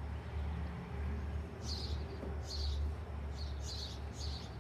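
Small birds chirping: a handful of short, high chirps from a little under two seconds in onward, over a steady low rumble.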